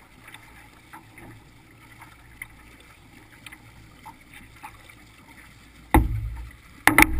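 Water lapping and trickling faintly with small ticks against a canoe's hull as it glides. About six seconds in there is a sudden loud thump close to the bow, and just before the end a quick cluster of several more.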